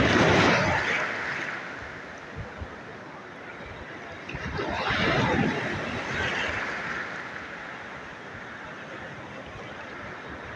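Mediterranean Sea waves breaking and washing in. There are two surges, one right at the start and another about five seconds in, with a lower hiss of surf between them.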